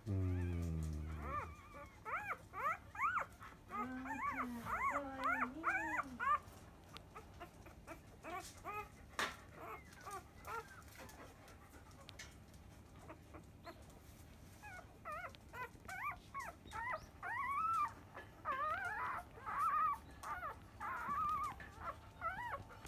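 Newborn Labrador retriever puppies squeaking and whimpering as they nurse and jostle for the mother's teats. The short, high, rising-and-falling squeals come in two bouts, and one pup seems unable to get a teat. A short low groan at the very start.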